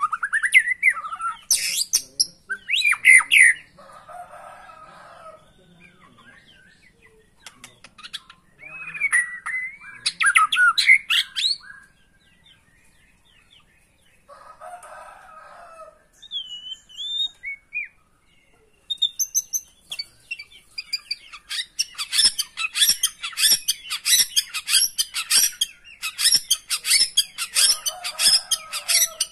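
White-rumped shama singing: loud whistled phrases mixed with harsh churring notes, a few clear rising whistles around the middle, then a long, fast run of sharp chattering notes through the last third.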